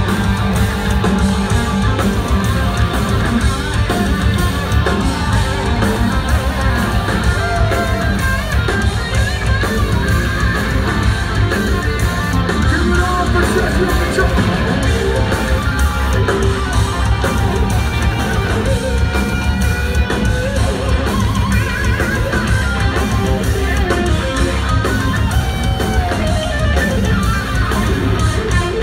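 Hard rock band playing live at full volume: distorted electric guitars, bass and drums, with a singer's voice, heard from within the audience.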